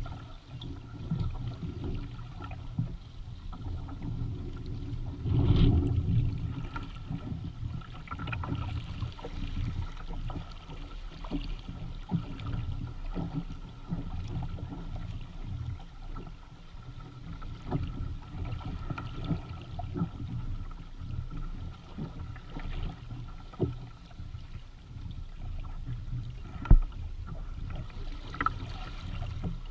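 Lake water splashing and gurgling against the hull and outrigger floats of a Hobie Tandem Island sailing kayak under sail, an irregular wash with scattered slaps. A louder surge comes about five seconds in, and a sharp slap comes a few seconds before the end.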